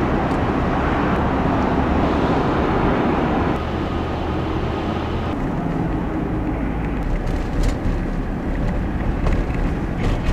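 Cabin noise of a Land Rover Discovery 4 on the road: a steady rush of tyre, wind and engine noise. It drops a little in level about a third of the way through as the car comes off the highway onto the exit ramp.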